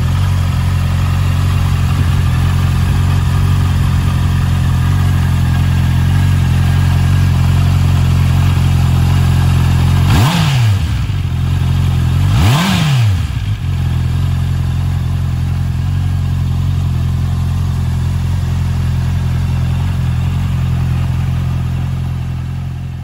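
Honda CBR650R's inline-four engine idling steadily, blipped twice with short revs about ten and twelve seconds in, dropping straight back to idle each time.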